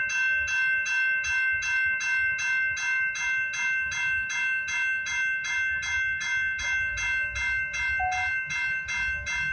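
Railroad level-crossing warning bell ringing in a steady, even rhythm, close to three strikes a second, with the crossing activated for an approaching train.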